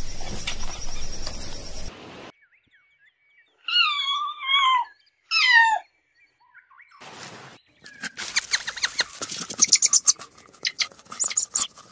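Animal calls: about two seconds of background noise, then three short wavering high calls, then a rapid series of sharp high chirps and clicks.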